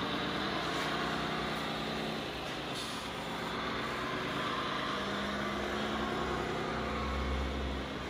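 Radio-controlled scale model truck running: a steady mechanical drone with a hum that shifts in pitch now and then, and a low rumble that swells about seven seconds in.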